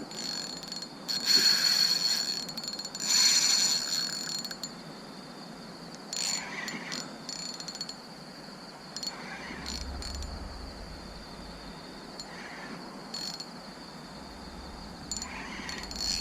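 Spinning reel's drag clicking rapidly as a hooked barramundi pulls line, in two runs of about a second each near the start and shorter bursts later. Under it, a steady high buzz of night insects.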